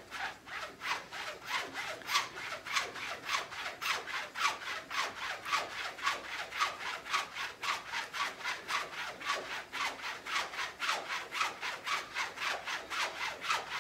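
Straight razor being stropped on a fire hose strop: quick, even swipes of the blade over the hose's coarse woven fabric, about three to four strokes a second. This is the first stropping of the edge straight off an Arkansas stone.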